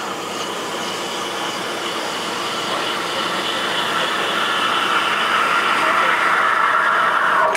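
Espresso machine steam wand steaming milk in a stainless steel pitcher: a steady hiss that grows louder over the last few seconds, then cuts off suddenly as the steam is shut off.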